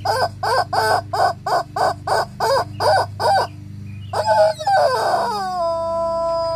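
Rubber chicken toy squeezed over and over, giving short squawks about three a second. After a short break comes one noisy squawk and then a long, steady squeal that drops slightly in pitch and cuts off near the end.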